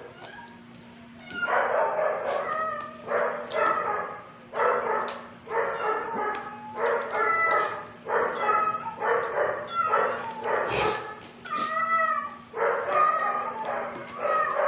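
A dog barking over and over off camera, starting about a second and a half in and keeping up a bark roughly every half second to second.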